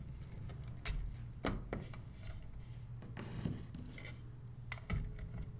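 Handling noise as a cable and its rubber strain-relief boot are worked out of a trolling motor's plastic control box: a few short clicks and rubs of plastic and cable, over a low steady hum.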